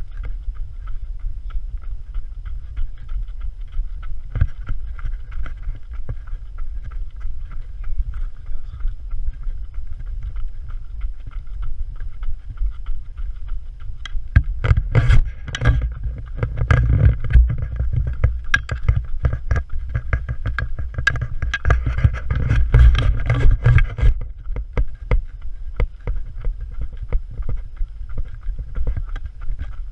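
Wind buffeting a moving action camera's microphone during a trail run, a steady low rumble, with irregular footfalls and knocks from the jostled camera that grow busier and louder from about halfway through for some ten seconds.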